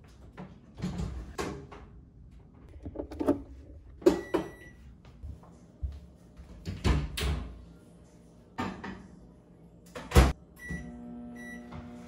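Microwave oven being used: clunks and knocks of its door and the cabinet, the loudest about seven and ten seconds in, and a short keypad beep about four seconds in. Near the end come two more beeps, then the microwave starts running with a steady hum.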